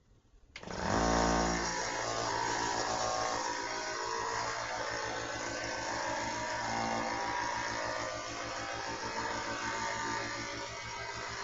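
Coopari portable high-pressure air compressor switching on abruptly about half a second in and running steadily with a hum and a hissing rattle, charging a PCP air rifle's reservoir.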